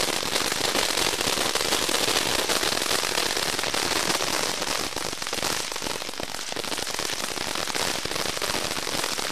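Fireworks crackling: a dense, continuous run of small rapid pops, a little quieter in the second half.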